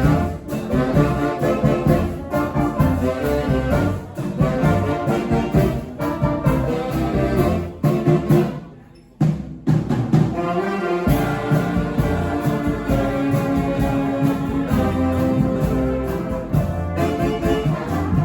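Live brass band playing, trombones and trumpets together. About nine seconds in the band drops out for a moment, then comes back in all at once.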